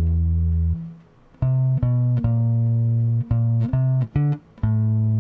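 Electric bass guitar played slowly, one separate note at a time: a held note dies away about a second in, then a short gap and a string of six or seven sustained low notes, the last one ringing on.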